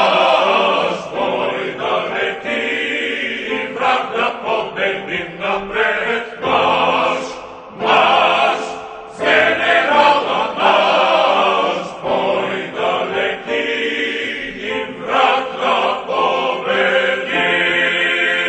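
A choir singing in short phrases, ending on a long held chord near the end.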